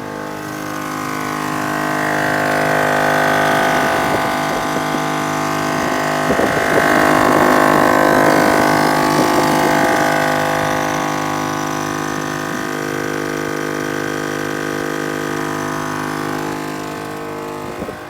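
All Top air compressor running steadily as it pumps a tyre up through the high 50s psi, nearing 60, with a steady motor hum. It grows louder for several seconds in the middle, then settles.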